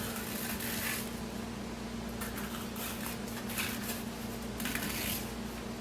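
Fork tines dragged lengthwise along a cucumber's skin, scoring it: about four scratchy strokes, the first about a second long, then shorter ones a second or so apart.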